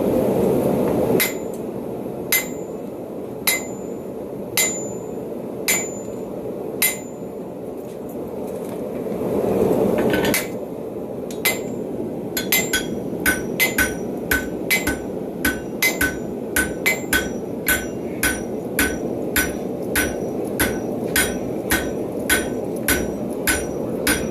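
Hand hammer striking a hot railroad spike on a Hay-Budden anvil, each blow ringing: about one blow a second at first, then after a short pause a faster run of about two a second. A steady low rushing noise runs underneath, louder briefly at the start and around ten seconds in.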